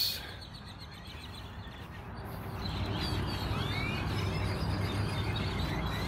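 A roosting flock of great-tailed grackles in a tree, a dense chorus of chirps, squeaks and rising whistles that grows louder about two seconds in, over a low steady rumble.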